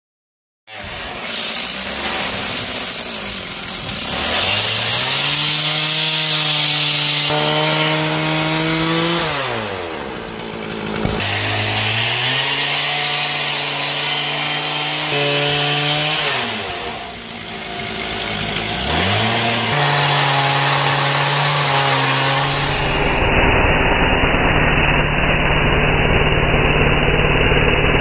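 Chainsaw on a pivoting sawmill frame cutting a California buckeye burl. The engine starts about a second in, revs up and drops back three times through the cut, then runs steadily at high speed near the end.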